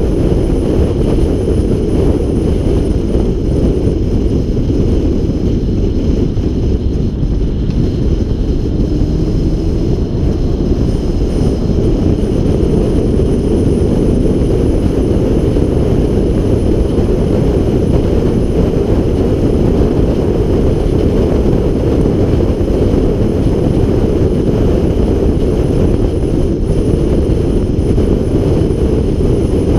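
Car driving at highway speed around a track: a steady, loud low rumble of engine, tyre and wind noise.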